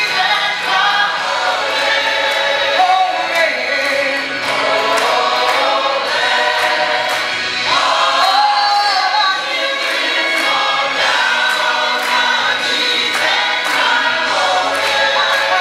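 Gospel choir singing with a soloist, accompanied by a band with a steady beat.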